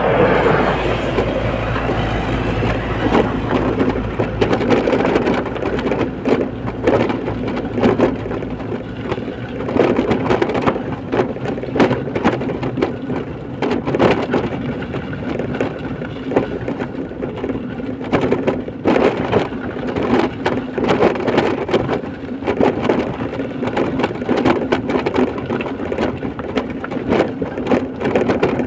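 Vehicle noise on the move: a low steady engine hum that drops away about eight seconds in, under continual rattling and knocking.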